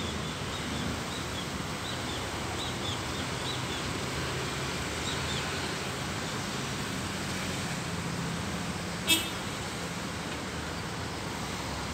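Steady outdoor background noise with a low traffic hum, faint high chirps over the first few seconds, and a single short, sharp high beep about nine seconds in.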